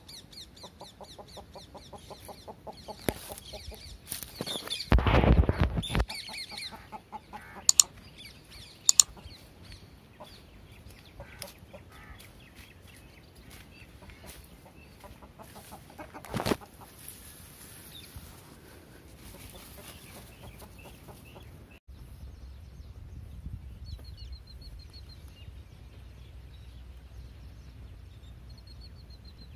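Birds calling, a rapid run of repeated calls over the first several seconds, then scattered faint chirps. A loud low rumble comes about five seconds in, a few sharp clicks follow, and a low steady rumble runs through the last third.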